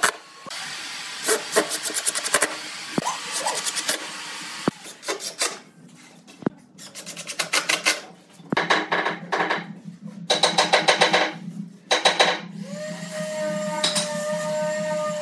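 Cordless impact driver driving screws into pine boards, in about seven short bursts of rapid hammering with pauses between. Near the end a steady humming tone takes over.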